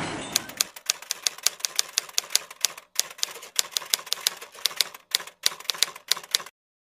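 Typewriter sound effect: rapid keystroke clicks, about five a second with a few short pauses, stopping suddenly near the end. A rushing noise fades out in the first half-second.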